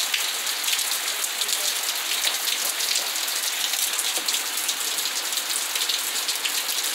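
Heavy rain falling steadily: an even hiss with many small drop ticks and splashes close by.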